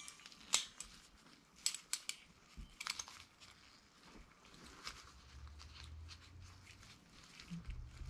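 Handling sounds: scattered sharp clicks of steel locking pliers being set and clamped, with rustling of a cloth wrapped around a sprayer valve part. A faint low hum comes in about halfway through.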